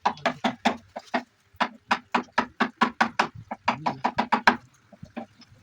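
Rapid hammering on wood, about four sharp knocks a second, in runs with a short pause about a second in and another near the end.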